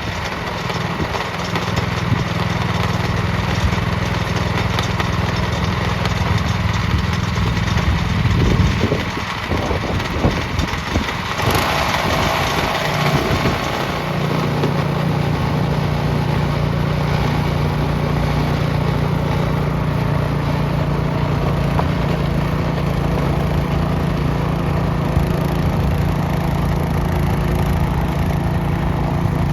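A snowblower's small gasoline engine running steadily. For a few seconds around the middle its note breaks up and a burst of rushing noise rises over it, then it settles back to the same steady running.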